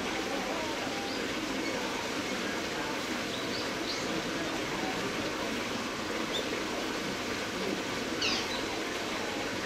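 A few short, high bird chirps, about four seconds in, near six seconds and near the end, over a steady hiss of outdoor background noise.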